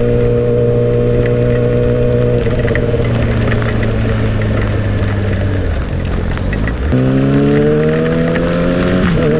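Yamaha R6's inline-four engine running at highway speed. The revs hold steady, then sag for a few seconds, jump with a downshift about seven seconds in and climb under acceleration, with an upshift near the end. Wind noise and rain ticking on the camera run underneath.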